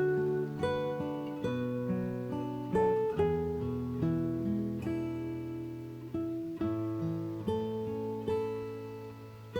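Background music: acoustic guitar strummed and picked, chords changing about once a second.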